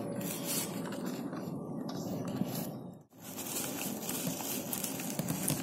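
Dry, crumbly fishing bait rustling and crunching softly as it is handled by hand over a plastic tray, with a brief dropout in the sound about three seconds in.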